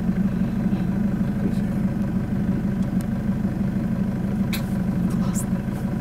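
Car engine idling steadily, with a couple of short clicks about four and a half and five and a half seconds in.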